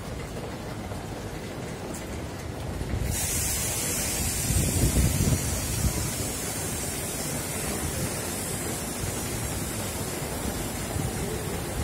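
Outdoor noise with wind buffeting the microphone, and a steady high hiss that starts abruptly about three seconds in.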